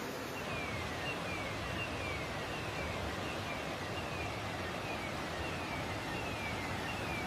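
Steady rushing of flowing floodwater, with a high tone that falls in pitch repeating about every two-thirds of a second, like an electronic alarm.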